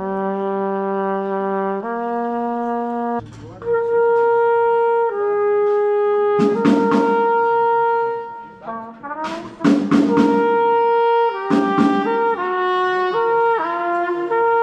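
Trumpet playing long held notes that step up and down in pitch, moving into quicker short phrases near the end.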